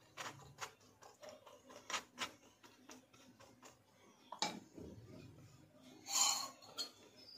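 Faint, scattered clicks and taps of a metal utensil on an iron tawa, with a louder knock about four and a half seconds in and a short rush of noise about six seconds in.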